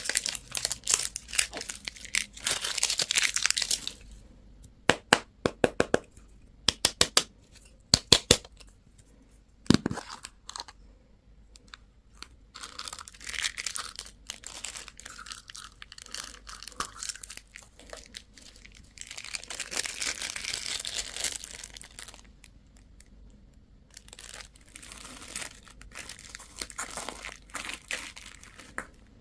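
Candy and toy packaging being torn open and crinkled, with a run of sharp clicks or snaps partway through.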